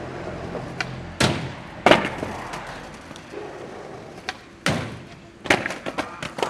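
Skateboard hitting concrete: two heavy slams about a second in, another past the middle, then a quick run of clattering knocks near the end as the board comes down and bounces away after a bail.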